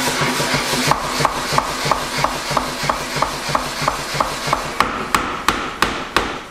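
B&S Massey pneumatic power hammer running over a steady machine drone, its ram striking a wooden plank laid on the bottom die about three times a second. The blows grow sharper near the end. This is a test run after adjusting and reassembling the hammer.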